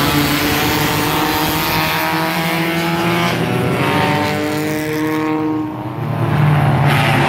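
A field of Bomber-class stock car engines accelerating together as the green flag drops at the race start, several engine notes rising in pitch at once. A louder, deeper engine note comes in near the end.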